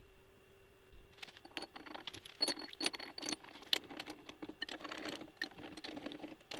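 Machined metal parts of a lathe chuck backplate assembly clinking, scraping and rattling together as they are test-fitted by hand, with a light metallic ring. The clinking starts about a second in and goes on in quick irregular bursts.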